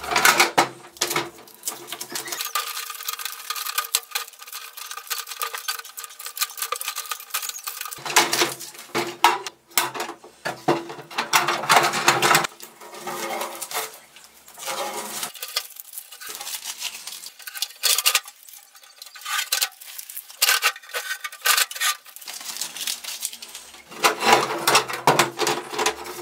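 Sheet-metal cantilever toolbox being handled: irregular metallic clattering, knocks and scrapes as its trays, lid and handle are moved.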